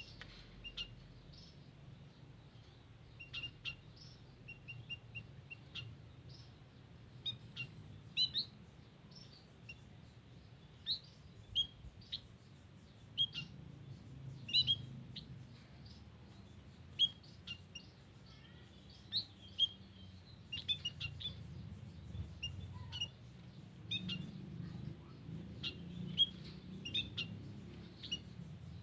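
Emprit kaji munias calling: short, high chirps scattered irregularly, sometimes in quick runs of several, over a low steady background rumble.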